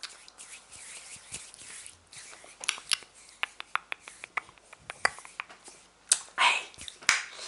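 Close-up ASMR hand sounds: fingers rubbing, scratching and tapping right at the microphone, with a quick run of sharp clicks in the middle and a breathy rustle near the end.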